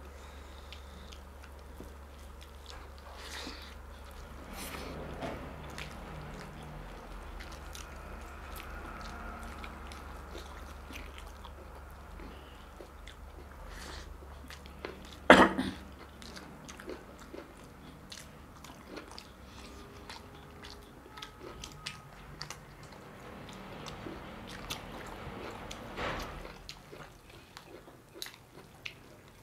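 Close-miked eating: chewing and biting mutton curry with rice, with many small wet clicks. One sharp, loud knock comes about halfway through.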